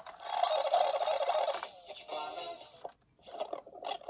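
Sanyo M4440 stereo cassette player in review (rewind with the tape audible): music on the tape plays back sped up as a high, garbled chatter, fading and stopping about three seconds in, followed by a few short clicks. The review function is working.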